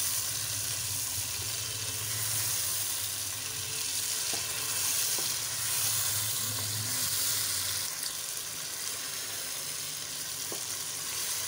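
Marinated chicken pieces sizzling in hot oil and tomato in a pan as they are stirred and turned with a wooden spatula, a steady high-pitched frying hiss. The chicken has just gone into the softened tomatoes and is starting to fry.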